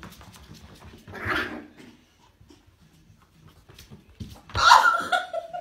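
Small dog giving a whine-like call of about a second near the end. Scattered light clicks and a shorter sound about a second in come before it.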